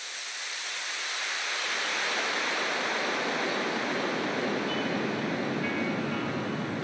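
A steady synthesized rushing noise, a whoosh sweep whose pitch slides slowly lower, with a few faint musical tones coming in near the end.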